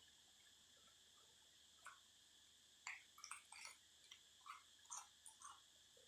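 Cicadas singing in a steady high buzz, with a scatter of short, sharp chewing and mouth sounds from someone eating noodles, starting about two seconds in.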